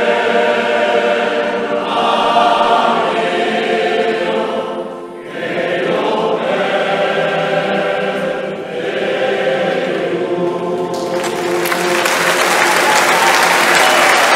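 Mostly male choir singing full chords in long held notes, with a brief breath near 5 s. About 11 s in, the song ends and audience applause breaks out and builds.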